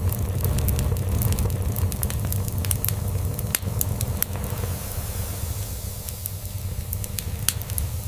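Crackling log fire, with frequent sharp pops and snaps scattered irregularly over a steady, low cat purr.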